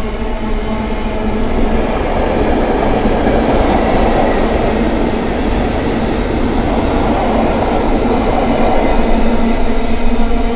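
Container freight train's loaded wagons rolling past, a steady rumble of steel wheels on the rails with a faint steady tone running underneath.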